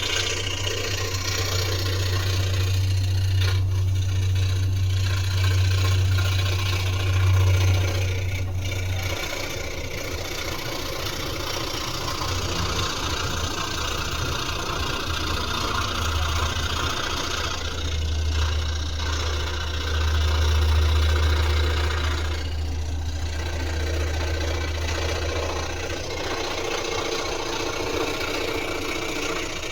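Electric sander running on wood: a steady motor hum under a rough sanding hiss. The hum drops away about nine seconds in and comes back a few seconds later.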